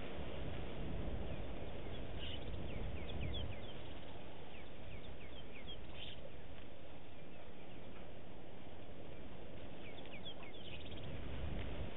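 Outdoor bush ambience: a steady low noise with scattered short, high bird chirps, in clusters a couple of seconds in, around six seconds and again near the end.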